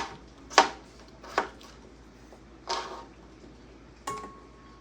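Kitchen clatter: about five separate sharp knocks and clinks of dishes or utensils, the last about four seconds in ringing briefly like a struck pot or dish.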